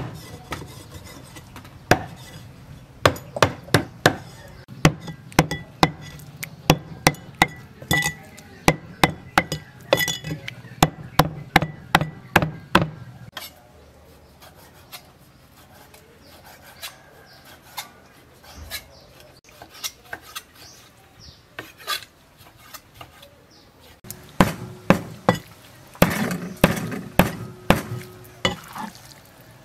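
Cleaver chopping raw beef on a round wooden chopping block: a run of sharp knocks at about two to three a second, thinning to scattered light taps about halfway through, then fast chopping again near the end.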